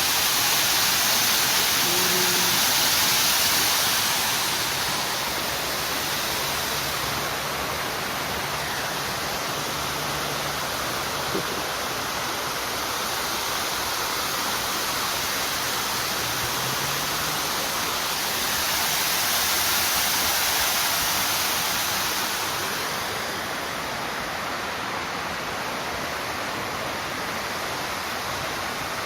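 Steady rushing of running water, swelling louder twice.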